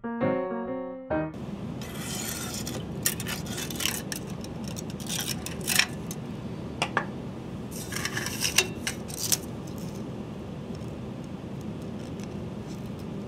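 Piano music ends about a second in. Then, over a steady hum, a hand tool scrapes and clicks against a 3D printer's aluminium bed in a run of short, sharp strokes as the printed part is pried loose, dying away a few seconds before the end.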